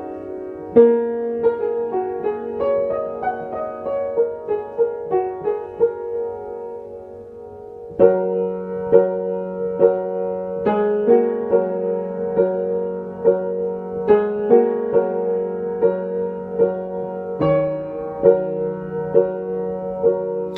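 Piano introduction to a slow song, notes and chords struck at an even pace over a held bass note. It thins out and quietens around six seconds in, then comes back fuller at about eight seconds.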